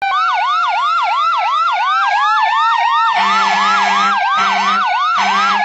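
Fire engine siren sounding, a fast yelp that whoops up and down about three to four times a second over a slower wailing tone. From about three seconds in, a low horn blasts three times over it.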